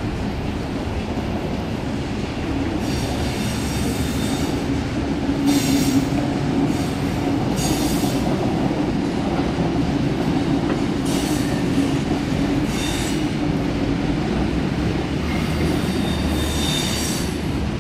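Double-deck suburban electric train rolling slowly past with a steady rumble, its wheels squealing high-pitched in about six short bouts.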